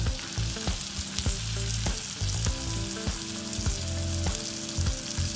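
Minced garlic and cumin seeds sizzling in hot melted butter in a nonstick pan, a steady frying hiss.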